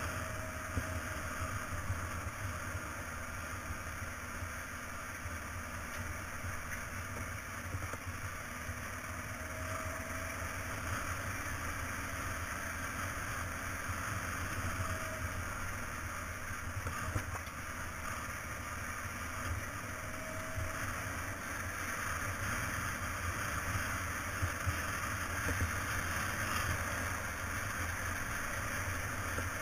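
Motorcycle engine running steadily as it rides along a dirt road, with tyre noise and wind noise on the microphone.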